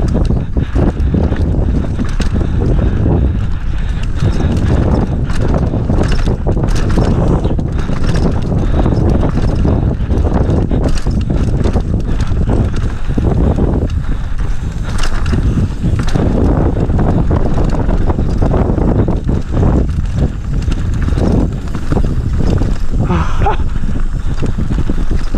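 Downhill mountain bike ridden fast down a rough dirt trail, heard from a camera mounted on the bike or rider: a steady rumble of tyres and wind on the microphone, with constant rattling and clattering knocks from the bike over bumps.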